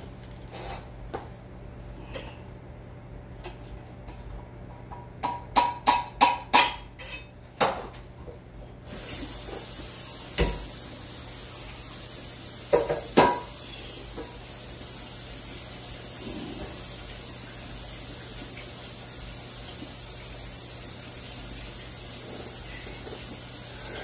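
A quick run of dishes clattering, then a kitchen tap running steadily into a sink from about nine seconds in as a dish is rinsed out, with a couple of knocks of the dish against the sink.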